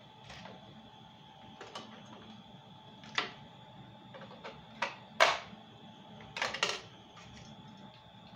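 Hard plastic clicks and knocks from a toy RC car and its pistol-grip transmitter being handled, a handful of separate sharp knocks, the loudest about five seconds in.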